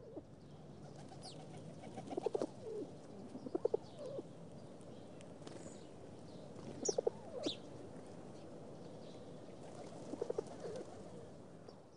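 Birds calling: four groups of short, low, pulsed calls, a few seconds apart, with a few brief high chirps over a faint steady background.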